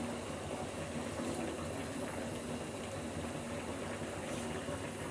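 Liquid in a cooking pot boiling, a steady low bubbling.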